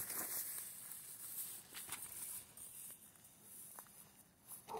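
Faint handling sounds of a nylon cast net being gathered up for a throw: soft rustles and a few light clicks over a steady outdoor hiss, with a brief voice-like sound near the end.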